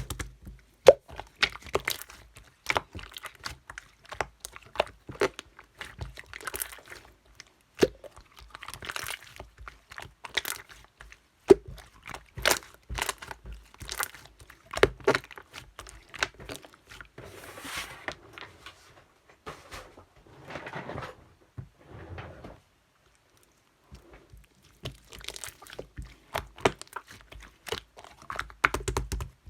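Irregular sharp clicks and crunchy rustling, like small objects being handled up close, with a brief pause about 23 seconds in.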